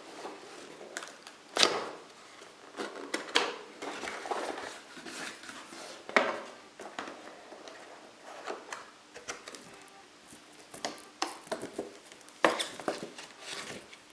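A cardboard keycap box being opened and the plastic keycap trays inside handled. Irregular knocks, clicks and rustling, with sharper knocks about one and a half, three, six and twelve seconds in.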